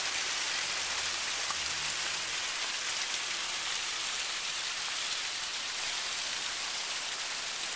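Water splashing and rushing steadily down a boulder waterfall.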